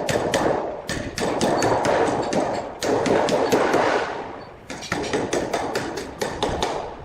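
Rapid hammering on steel, about four to five blows a second, in several bursts with short pauses between them.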